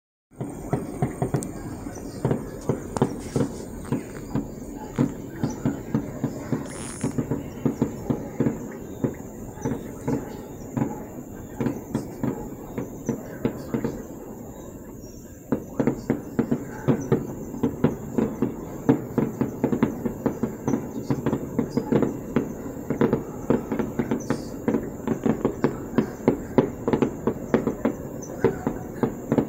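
Fireworks crackling and popping in rapid, irregular reports, several a second. About halfway through they die down for a few seconds, then start again abruptly and densely.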